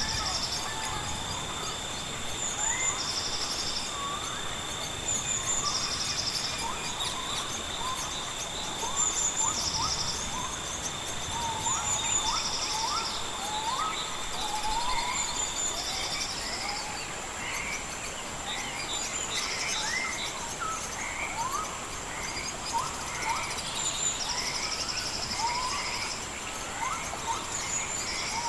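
Jungle ambience: insects holding steady high-pitched drones, one of which stops about halfway, and pulsed insect trills every two or three seconds, over many short rising bird calls.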